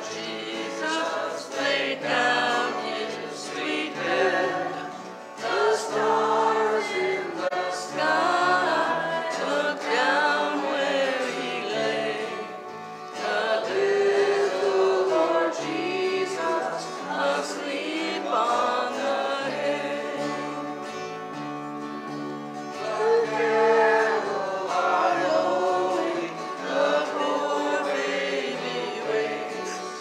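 Small worship band singing a hymn in several voices to guitar accompaniment, sustained sung lines over steady low chord and bass notes that change every second or two.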